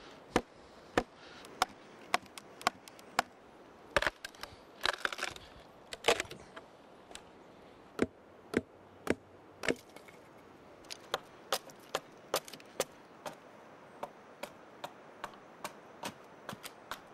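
Wooden wedges being hammered into a cedar log to split it lengthwise: a series of sharp wooden knocks, about one or two a second. There is a clatter of quick cracks in the middle. In the last few seconds the strikes come lighter and quicker.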